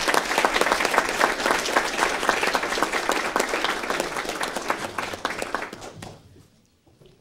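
Audience applauding: a dense patter of many hand claps that dies away about six seconds in.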